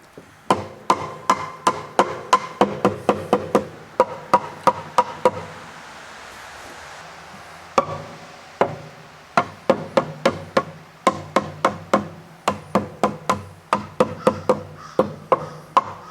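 Sand-filled rubber mallet striking 2x6 tongue-and-groove boards, knocking them together: two runs of quick blows, about three a second, with a pause of about two seconds midway.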